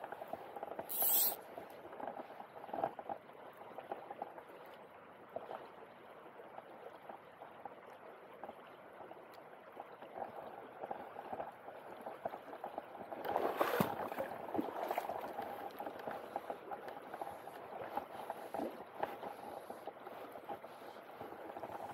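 Shallow river current running over a cobble bed, a steady rushing babble of water close by. A brief sharp hiss comes about a second in, and the water noise swells louder about two-thirds of the way through.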